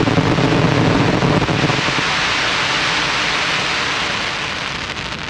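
Fireworks crackle: a dense, rain-like hiss of many tiny pops from crackling stars, slowly dying away.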